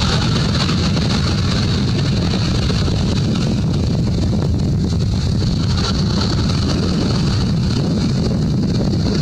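Wind buffeting the microphone: a steady low rumble with a steady hiss above it.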